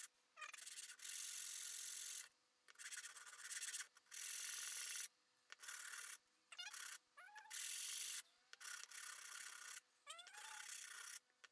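A small CNC-cut wooden piece rubbed by hand on a sheet of sandpaper: a faint rasping in repeated strokes of about a second with short pauses, smoothing its furry edges.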